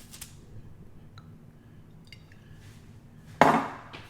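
Olive oil bottle being handled: a few faint small clicks, then one sharp glassy clink with a brief ring about three and a half seconds in, as it is set down or knocked against a hard surface.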